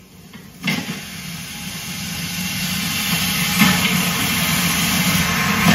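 Large pot of mutton pieces cooking over a fire: a steady rumbling, hissing noise that starts about half a second in and grows slowly louder.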